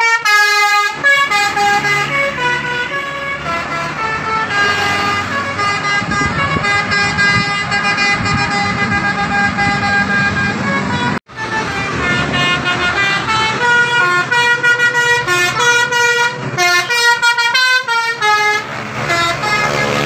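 Telolet horns on Indonesian tour buses, multi-tone air horns playing quick stepped tunes over the engine noise of the passing buses. The sound cuts out for an instant a little past halfway and then the horns resume.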